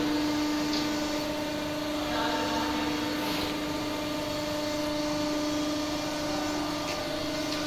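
Steady mechanical hum with one constant low tone, from the hydraulic pump units of a 640-tonne tandem press brake running.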